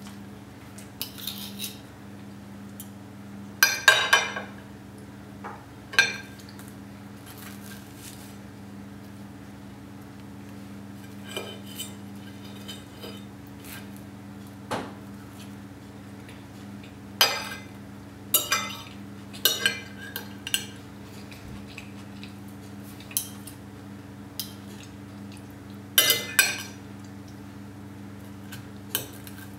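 A metal knife and fork clinking and scraping on a ceramic plate as food is cut and picked up, in scattered strokes. The loudest clatters come about four seconds in and again near the end. A steady low hum runs underneath.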